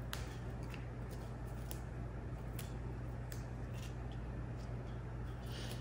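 Fresh basil leaves being plucked from their stems by hand: faint scattered snaps about once a second, with a brief rustle near the end, over a steady low hum.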